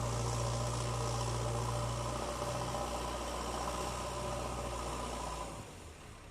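JCB excavator's diesel engine running steadily with a low, even hum, its note falling away and getting quieter about five and a half seconds in.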